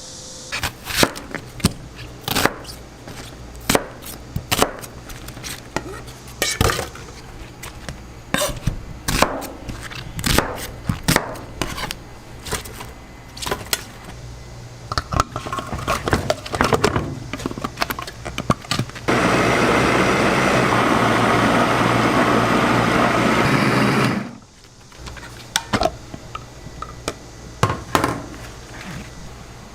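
Kitchen utensils knocking and clattering against bowls and cookware in irregular sharp strikes. About two-thirds of the way through, a loud steady rushing noise runs for about five seconds and stops suddenly, then the clatter resumes.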